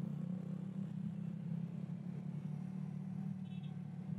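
Motorcycle engine running steadily at cruising speed while riding, with road and wind noise.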